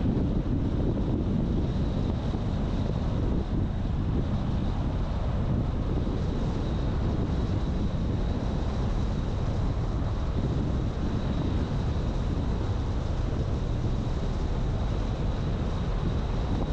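Steady road and engine noise of a car on the move, with wind buffeting the microphone.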